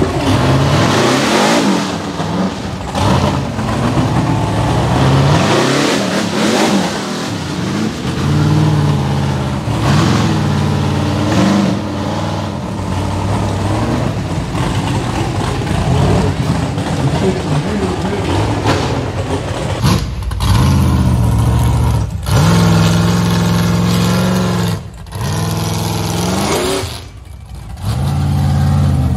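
Rock bouncer buggy's engine revving hard in repeated bursts, the revs rising and falling over and over as it claws up a rocky hill climb, with a couple of brief drops in level near the end as the throttle comes off.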